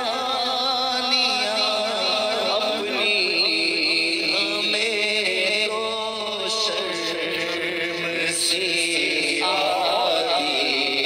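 A man's voice chanting a naat, an Urdu devotional poem, in long wavering melodic phrases with no instruments.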